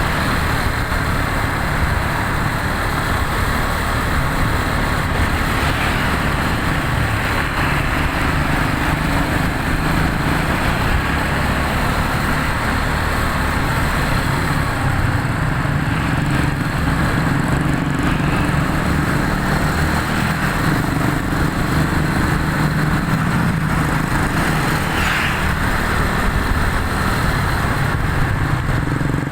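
Steady roadside traffic noise from passing vehicles, with a deeper engine hum coming up about halfway through; no horn is played.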